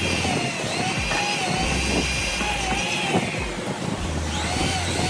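Electric power tool motor whining as it works wood, its pitch sagging and recovering several times as the cut loads and unloads it.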